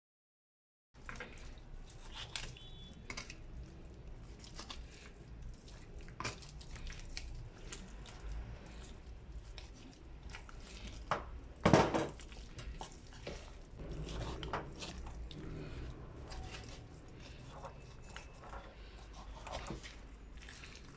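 Knife cutting and scraping raw chicken meat away from the breastbone, with scattered small clicks and taps of the blade and handling on the cutting board and one louder knock about twelve seconds in, over a low steady hum.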